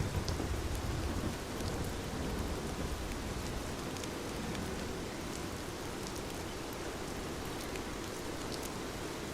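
Steady rainfall with a low rumble of thunder in the first second or so, and faint scattered crackles from a fireplace fire.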